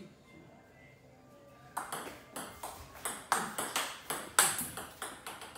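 Table tennis rally: the ball clicking sharply off the bats and the table in quick succession, about four to five clicks a second, starting a little under two seconds in after a quiet serve set-up.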